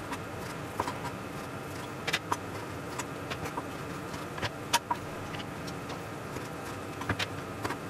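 Kitchen knife halving cherry tomatoes on a plastic cutting board: irregular sharp taps of the blade striking the board, some in quick pairs, over a steady background hiss.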